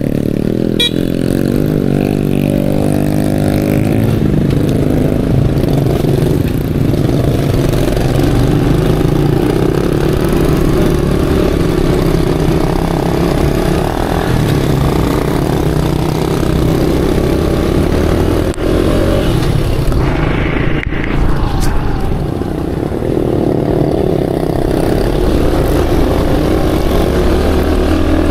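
Aveta Ranger Max Explorer motorcycle engine running steadily while being ridden, its pitch rising a few times in the first seconds as the throttle is opened.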